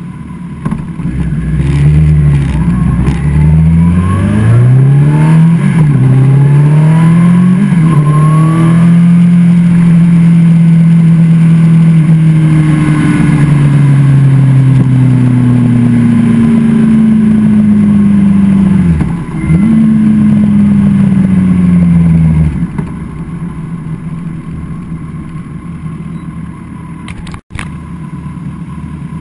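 2013 Kawasaki ZX-14R inline-four through a Brock's Performance Alien Head 2 full exhaust, heard from a camera on the bike: it accelerates through several quick upshifts, the pitch climbing and dropping at each shift, then holds a steady loud drone at about 65 mph in 3rd gear, with a brief dip about two-thirds through. The pitch then sinks, and the engine note drops off sharply as the throttle closes, leaving quieter wind and road noise.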